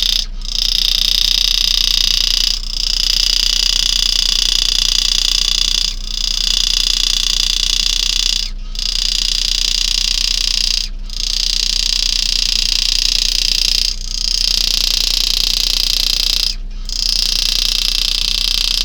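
Power-assisted engraving handpiece buzzing steadily as the graver cuts spiral scrolls into a coin. It stops for a moment every two to three seconds as the cut is paused and repositioned. A low mains hum runs underneath.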